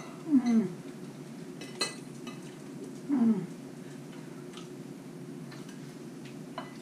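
Two short hummed 'mm' sounds from people tasting food, each falling in pitch, about three seconds apart. A single clink of a fork on a plate comes about two seconds in.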